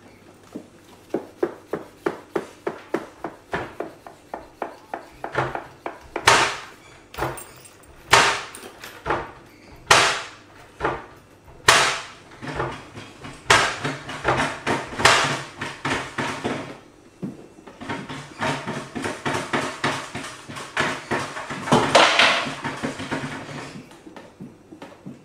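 A rapid series of sharp knocks, about two or three a second and growing louder, that turns into loud bangs about every two seconds and then a dense clattering rattle near the end.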